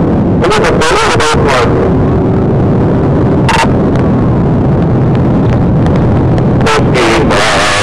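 Loud, steady road, wind and engine noise of a police patrol car driving flat out at over 100 mph, picked up by its in-car microphone, with scattered crackles.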